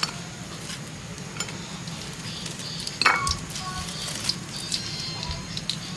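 Battered banana slices frying in hot oil with a steady sizzle, and a metal utensil clinking against the pan now and then, the sharpest clink about three seconds in.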